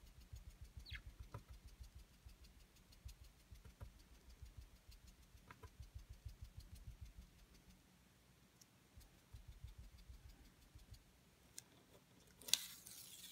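Foam ink-blending pad rubbed quickly over cardstock, working distress ink in through a paper mask: a faint, rapid run of soft rubbing strokes that pauses briefly past the middle. Near the end comes a louder rustle of paper as the mask is handled and lifted.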